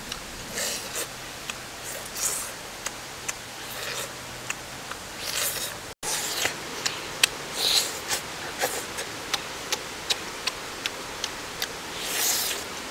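Close-up eating sounds from chewing grilled pig intestine: frequent sharp wet lip smacks and clicks, with longer slurping swells every second or two. The sound cuts out for an instant about six seconds in.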